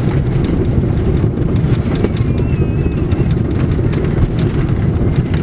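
Cabin noise of an Airbus A330-300 rolling out on the runway after touchdown: a loud, steady, deep rumble from the wheels and airframe, with frequent small rattles and knocks.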